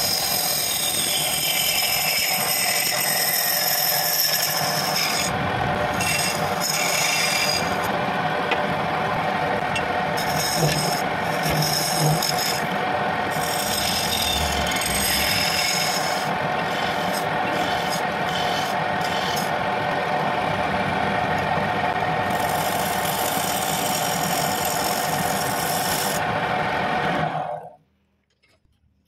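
Homemade wood lathe running while a hand-held turning tool cuts into the inner rim of a spinning wooden mug blank: a steady motor hum under a continuous scraping, rasping cut. It all cuts off abruptly near the end.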